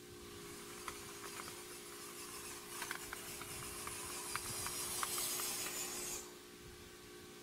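Small electric motor and gears of an RC crawler truck whining at a steady pitch, with a hiss and scattered clicks of tyres crunching over dirt and grit that grows louder as the truck passes close, then drops away suddenly about six seconds in.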